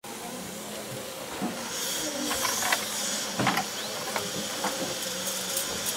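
Busy dentist's office ambience: a steady hiss that grows stronger about two seconds in, over a low hum, with scattered clicks and taps of instruments and activity.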